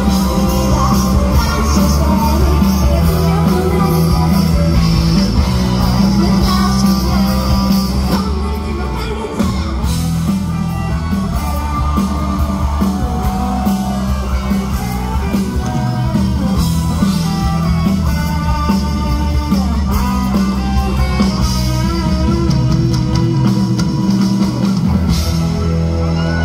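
Live rock band, with drums, bass and electric guitar, backing a woman singing into a microphone through the concert PA. The loudness dips briefly about nine seconds in.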